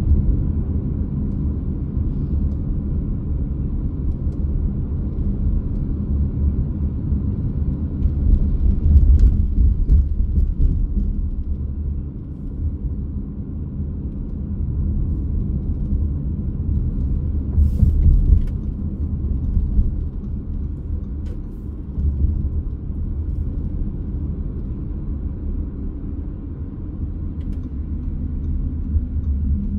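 Car driving: a steady low rumble of road and engine noise, with a few faint clicks.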